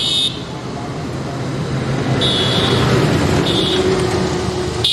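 Road traffic passing close by: a motorcycle coming up the road and a truck driving past, their engines and tyre noise growing louder toward the middle. A few short high-pitched beeps sound over it.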